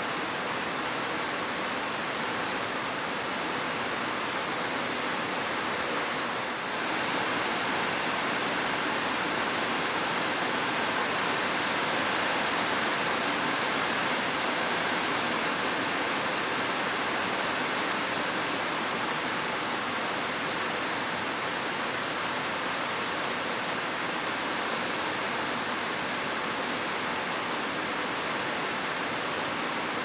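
Heavy rain falling steadily, a dense even hiss that steps up slightly in level about seven seconds in.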